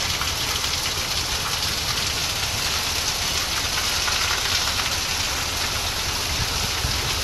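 Heavy rain pouring steadily, over the low steady rumble of a fire engine idling close by.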